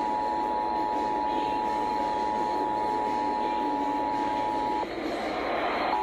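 Emergency Alert System two-tone attention signal, the steady dual tone of 853 and 960 Hz, sounding through laptop speakers. It breaks off for about a second near the end.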